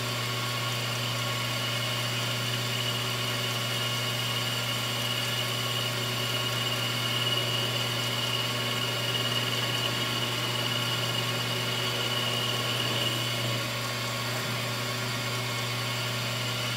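CNC-converted 9x20 benchtop lathe running its part program: a steady spindle-motor hum, with a high steady whine that sets in about two seconds in and fades out a few seconds before the end.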